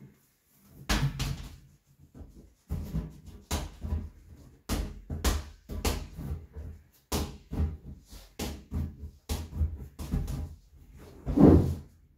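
Inflated exercise ball bouncing on a wooden floor: a run of dull thuds, about two a second, with the loudest thud near the end.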